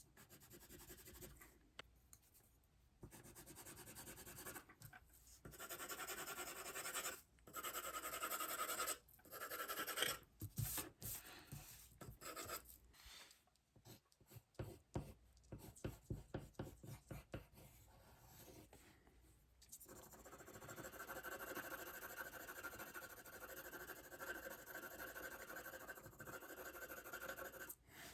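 Drawing strokes scratching on sketchpad paper while sketching. Strokes of varying length, a run of quick short back-and-forth strokes in the middle, then steadier continuous scratching near the end.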